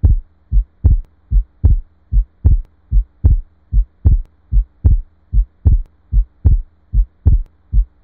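Recorded heartbeat heard through a stethoscope: a steady lub-dub at about 75 beats a minute with a faint low hum beneath. It demonstrates a split second heart sound, the dub heard as two closures (aortic then pulmonary valve), a normal finding on inspiration that is also heard in atrial septal defect.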